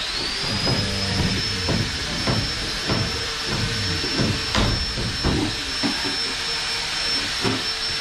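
A high-speed electric power tool motor whines up to speed at the start and then runs steadily with a hissing sound, while irregular knocks and taps come through underneath.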